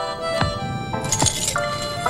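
Cartoon background music with two sound effects over it: a sharp hit a little under half a second in, and a short noisy burst about a second in.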